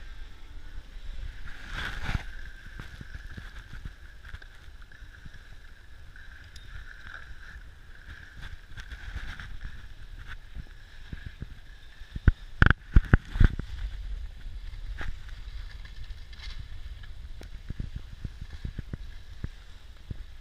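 Skis sliding up a packed-snow drag-lift track, a steady scraping hiss over a low rumble. A quick cluster of sharp knocks about twelve to thirteen seconds in.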